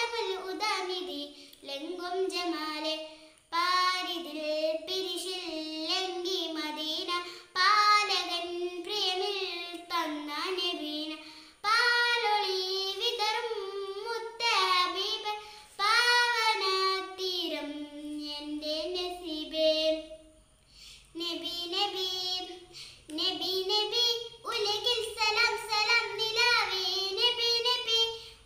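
A young girl singing solo and unaccompanied, in long phrases with held, wavering notes and a short break about twenty seconds in.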